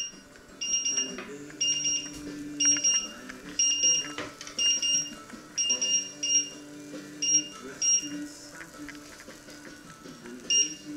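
Electric hob's touch controls beeping: short high-pitched beeps about once a second as the cooking level is set. They pause for a couple of seconds near the end, then start again.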